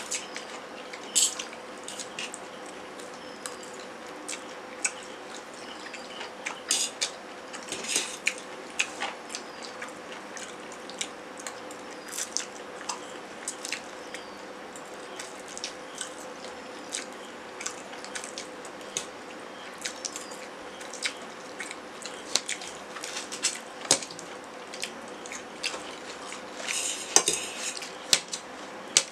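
Metal forks clinking and scraping against stainless steel plates of noodles, in scattered sharp clicks, with a busier run of clatter near the end.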